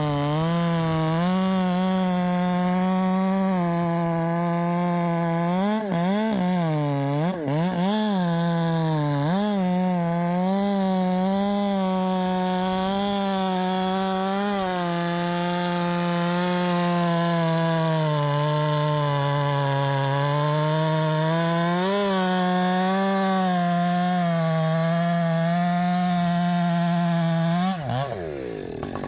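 Husqvarna 564xp chainsaw with a 32-inch bar and full-comp chain, running at high revs under load in a cut through wood. Its pitch wavers throughout and dips and recovers a few times about six to nine seconds in. Near the end the revs fall away quickly as the throttle is released.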